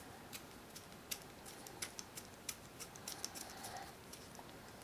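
Faint, irregular light clicks and ticks of a small standoff being twisted by hand onto a screw through a fiberglass quadcopter frame plate.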